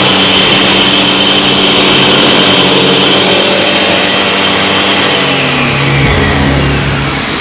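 A machine motor running steadily with a high whine. A deeper rumble joins near the end.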